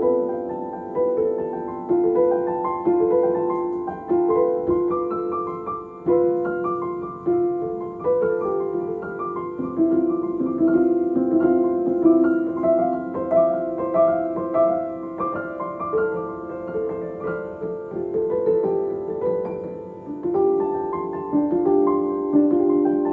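Background piano music: a flowing melody of notes that each strike and fade, with no speech.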